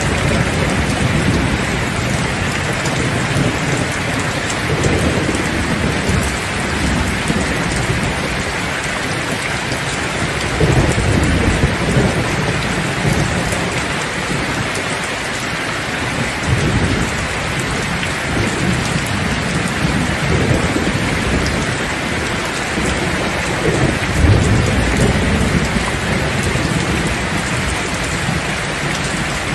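Steady heavy rain falling, with low rolls of thunder rumbling up several times, the strongest about eleven and twenty-four seconds in.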